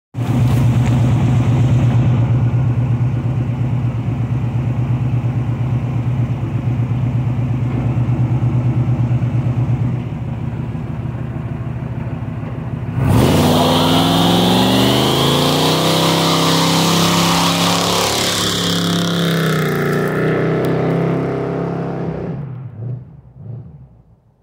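1980 Pontiac Firebird Trans Am tribute car's engine idling with a loud, lumpy rumble. About halfway through it revs hard and a single rear tyre spins and squeals in a one-wheel burnout, the engine rising and falling in pitch. The sound then fades away as the car pulls off.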